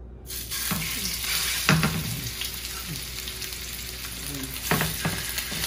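Raw beef short ribs sizzling in hot oil in a skillet, the sizzle starting right as the first rib is set down. A few sharp clicks sound over the steady frying.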